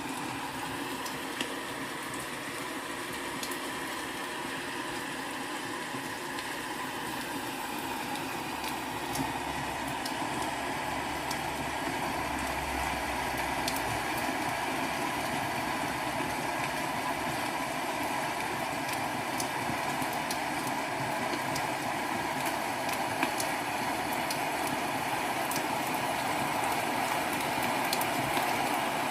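Recorded rain sound played from a TV through a Tronsmart Mirtune C2 speaker: a steady hiss of rainfall with scattered faint pattering ticks, slowly growing louder.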